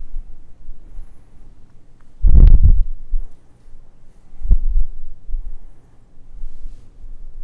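Dull, low thumps and rumbles over a faint room hum. The loudest and longest comes about two seconds in, and a shorter, sharper thump follows about four and a half seconds in.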